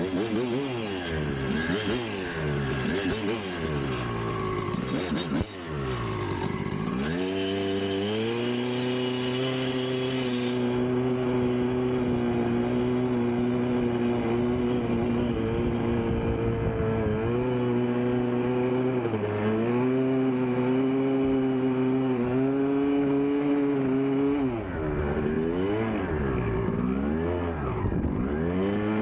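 1999 Kawasaki KX250 two-stroke dirt bike engine revving up and down rapidly for several seconds, then held at a steady speed for most of the rest, with a couple of brief dips and quick revving again near the end.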